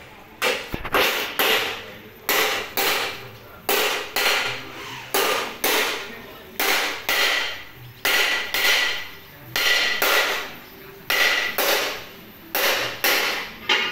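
Rhythmic metallic knocking: sharp knocks in pairs, one pair about every second and a half, each knock ringing briefly.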